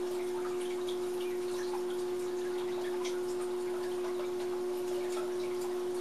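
Steady electrical hum on one unbroken tone, with faint scattered ticks and scratches from quail chicks moving about in wood shavings.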